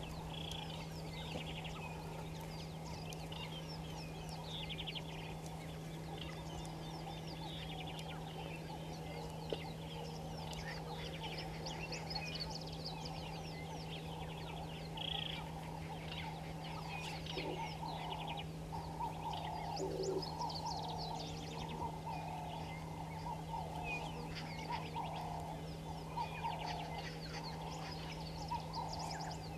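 A chorus of wild birds chirping and calling, with busy high chirps and trills and repeated lower calls that grow busier in the second half. A steady low hum runs underneath.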